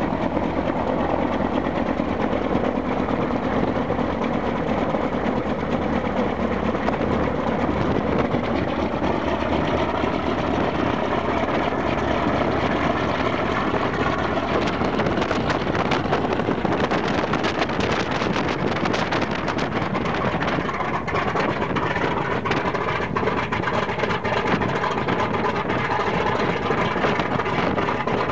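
Two Shvetsov ASh-82T radial piston engines of an Ilyushin Il-14 running together on the ground, a steady loud drone. From about halfway on, rough gusting on the microphone is added.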